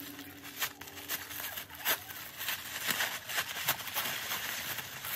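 Wrapping paper crinkling and tearing in a run of short, irregular rustles and rips as a gift is unwrapped.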